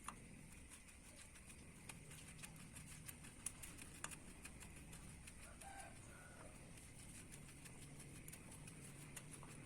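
Near silence, with faint scattered clicks and a brief faint bird call about six seconds in.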